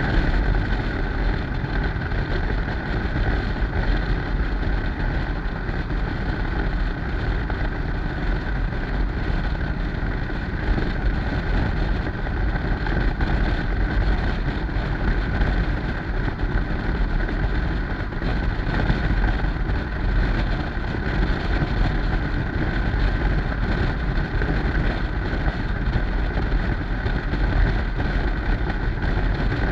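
Yamaha Stryker's V-twin engine running steadily under constant wind noise buffeting the microphone.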